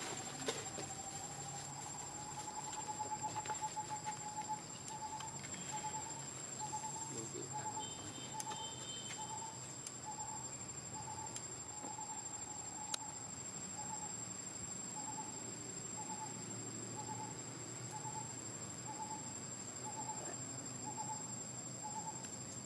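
Outdoor tree ambience: a hooting call repeated in a long series. It starts as a quick run of notes that slows into evenly spaced hoots about one and a half a second, over a steady high-pitched insect drone.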